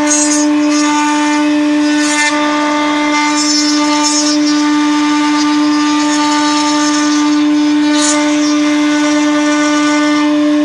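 CNC router spindle running with a steady, high-pitched whine as its bit engraves a wooden door, with a hiss of cutting that swells briefly every few seconds.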